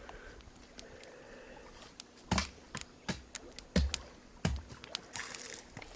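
Kindling wood being chopped or split: about five sharp knocks, roughly half a second apart, starting about two seconds in.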